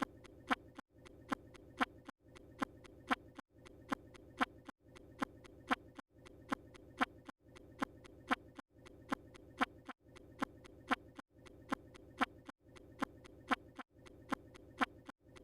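Looped sound effect of a quick double beat, like a heartbeat, over a steady low hum. It repeats about every second and a quarter, with a brief drop-out each time the loop restarts.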